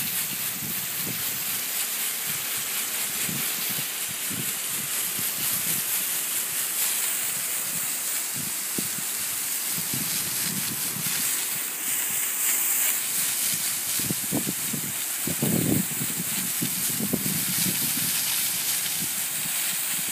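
Powered blower running steadily, its air jet a continuous hiss as it blows sand off aeration plugs across the turf.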